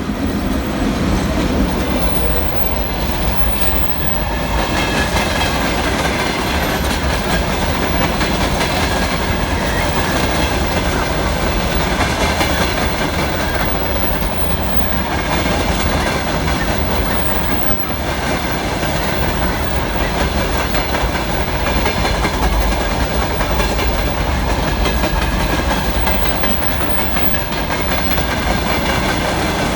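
Freight train rolling past, a steady rumble and clatter of its wagons' wheels on the rails.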